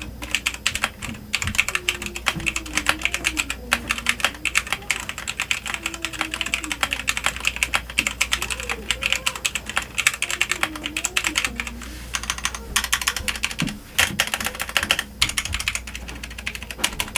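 Continuous fast typing on an E-Yooso Z11 60% mechanical keyboard with Outemu red linear switches: a dense clatter of keystrokes, many per second.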